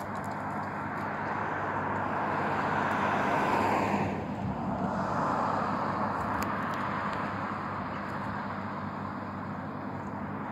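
Road traffic: car tyre and engine noise swells and fades as vehicles pass, loudest about three and a half seconds in and again around five seconds, over a steady low hum.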